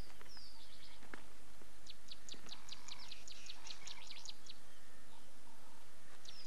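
A bird calling: a couple of falling high whistles at the start, then from about two seconds in a rapid run of short, high chirps, about five a second.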